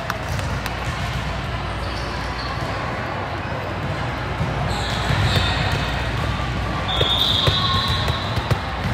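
A ball thumping on a gym floor over crowd chatter in a large hall, with a short high squeal about seven seconds in.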